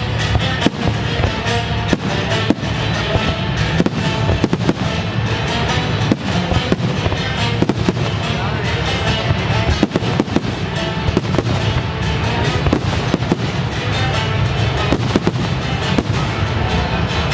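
Fireworks bursting and crackling in rapid, irregular bangs throughout, over a loud music soundtrack for the pyromusical show.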